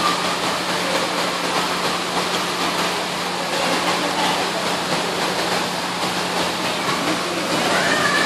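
Steady rush of circulating water in a stingray touch pool, with a low steady hum underneath.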